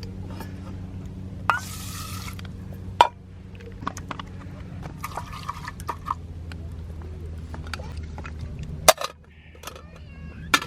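Metal camp cookware and utensils clinking and knocking, with a brief hiss or pour about a second and a half in and sharp knocks around three seconds in and near the end, over a steady low rumble.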